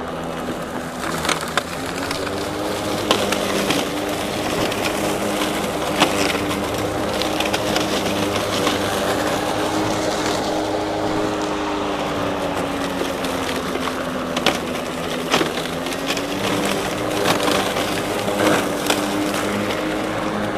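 RYOBI 40V HP brushless cordless mower running under heavy load in thick weeds and brush: a steady motor and blade whine whose pitch dips slightly and recovers, over repeated sharp cracks and snaps as the 21-inch blade chops woody stems. The motor keeps cutting without bogging down.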